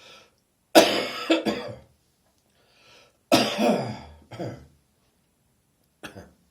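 A person's throaty morning cough: three coughs a few seconds apart, the first two each followed by a weaker hack, with quiet breaths in between. The cougher takes it for the sign of an approaching cold.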